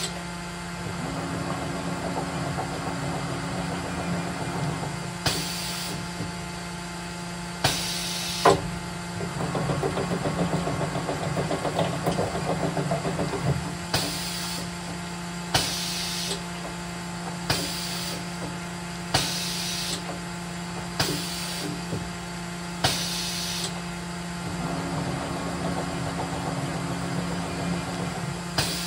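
Automatic tool changer of a Mazak VCC-5X 20K machining centre cycling: the disc tool magazine's drive runs in spells as it indexes the tool pockets round, with a rhythmic rattle while it turns. Short sharp air hisses come every second or two, over a steady machine hum.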